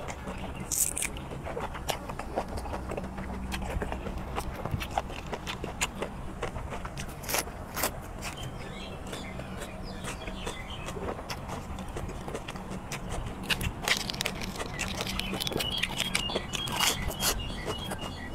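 Close-miked chewing of squid and fresh leafy greens: irregular wet smacks and crunchy clicks from the mouth, picked up by a clip-on microphone held just in front of it.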